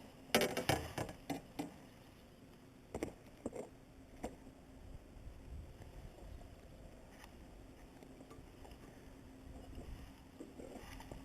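Light clicks and knocks of handling a just-landed crappie and the small jig in its mouth, clustered in the first two seconds with a few more around three to four seconds in, then only faint background.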